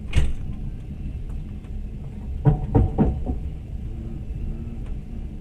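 Steady low rumble of a passenger train running, heard from inside the carriage. There is a sharp knock at the very start and a cluster of three short, louder sounds about halfway through.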